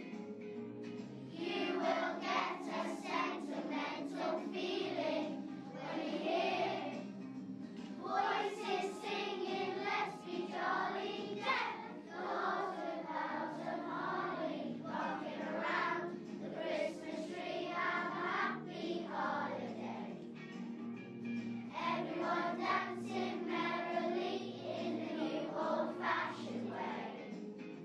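Children's choir singing a song together over a musical accompaniment.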